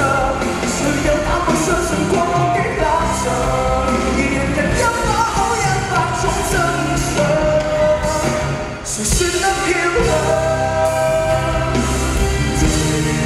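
Live Cantopop song: a male lead vocal sung into a handheld microphone over full band accompaniment, with a brief drop in loudness about nine seconds in.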